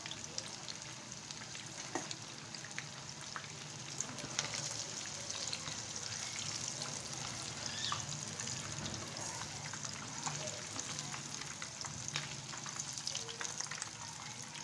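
Batter-coated chicken pieces deep-frying in hot oil in a pan: a steady sizzle, full of small crackles, with a few louder sharp pops.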